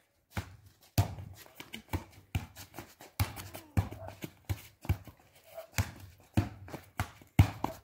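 A football being kicked and bouncing on stone paving during a rally: a run of sharp thuds at irregular intervals, about two a second.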